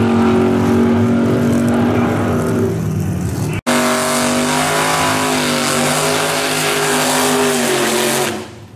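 Drag cars' engines at full throttle running down the strip, steady in pitch. After a cut about three and a half seconds in, a vintage drag car's engine revs high as its rear tyres spin in a smoky burnout, then drops off sharply near the end.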